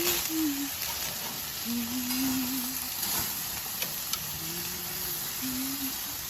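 Marinated chicken breast pieces sizzling steadily on a hot grill, cooking on their second side after being flipped, with a few held low notes heard over the sizzle.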